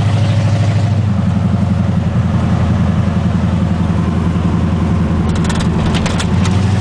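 Chevy pickup engine running through open, uncapped exhaust headers while the truck drives slowly: a loud, steady, low exhaust rumble heard from inside the cab.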